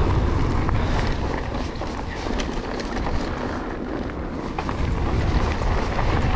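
Wind buffeting the microphone during a mountain bike ride, over tyre noise on a dirt trail, with scattered small clicks and rattles from the bike. The wind eases for a couple of seconds in the middle, then picks up again.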